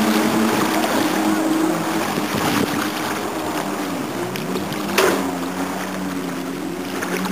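Kawasaki 750 jet ski two-stroke engine driving a small jet boat at speed, a steady engine note whose pitch drops about four seconds in, getting gradually quieter as the boat moves off. A single sharp click about five seconds in.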